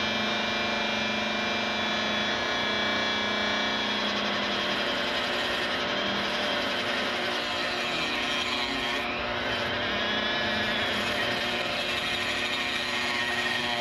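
Dremel rotary tool running at low speed, cutting through the vent rib of a 12-gauge shotgun barrel: a steady motor whine mixed with grinding, its pitch dipping briefly about eight seconds in as the wheel bites into the metal.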